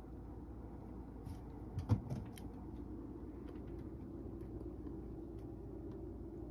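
A cat jumps down from a shelf and lands on a wooden floor with a thump about two seconds in, with a few light clicks around it. Under it runs the steady low hum of a room heater running.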